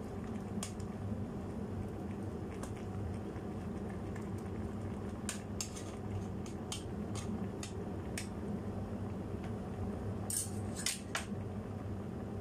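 A metal utensil clinks and taps against the side of a nonstick pot as the simmering cabbage soup is stirred. The clicks come scattered, a cluster in the middle and a louder pair near the end, over a steady low hum.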